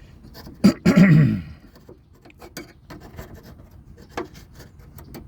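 Scraping and small clicks of the stuck lower latch on a 1999 Ford F-250's rear door being worked at, with a sharp knock under a second in. A short loud grunt from the man straining at it comes right after the knock.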